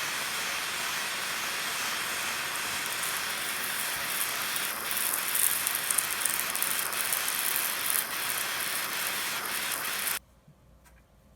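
A steady hiss that swells louder with some crackle partway through, then cuts off suddenly about ten seconds in.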